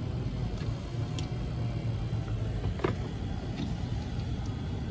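Steady low rumble of a passing autorack freight train, heard from inside a stopped car, with a sharp click a little past halfway.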